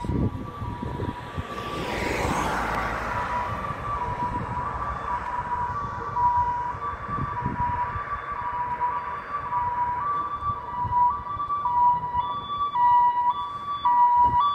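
Two-tone emergency siren on a Jelcz 422 fire engine, alternating steadily between two pitches, with a burst of hiss about two seconds in.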